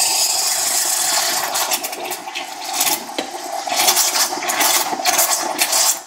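De'Longhi Stilosa espresso machine's steam wand hissing loudly as it steams and froths milk in a glass jug, the hiss wavering and sputtering in the second half as the jug is worked around the wand.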